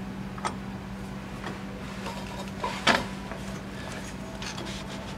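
A/C compressor clutch pulley being slid onto the compressor nose by hand: a few light metal clicks, with a louder knock a little over halfway through, over a steady low hum.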